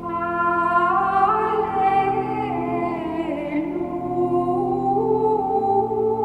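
Benedictine nuns singing Gregorian chant: a slow, wordless melisma on sustained notes over steady low held notes.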